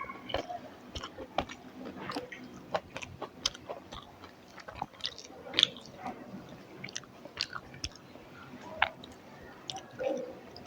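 Person chewing a mouthful of rice with fried bitter gourd close to the microphone, with irregular wet mouth clicks and smacks.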